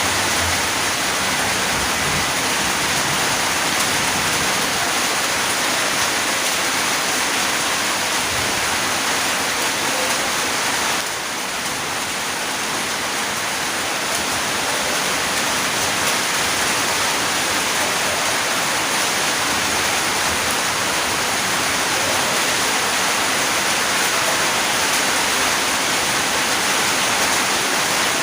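Steady rain falling, a dense even hiss that dips slightly about eleven seconds in.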